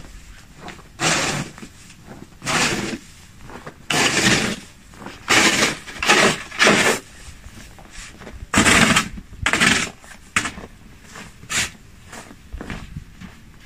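Plastic snow shovel scraping and pushing snow across paving in repeated strokes, about one a second, thinning out and stopping near the end.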